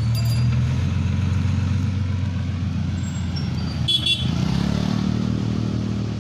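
Lorry's diesel engine running with a steady low drone as it moves off, loaded with a backhoe loader; about four seconds in there is a brief sharp sound and the engine note rises as it accelerates.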